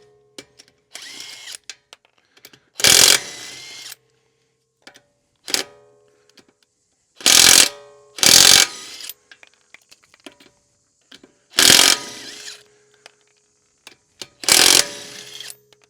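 Compressed air hissing into a flat tire in short, loud bursts, about five strong ones and a few weaker ones, each under a second.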